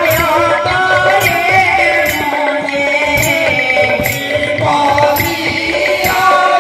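Devotional kirtan music: held, wavering melody lines over a drum, with a crisp strike keeping a steady beat about once a second.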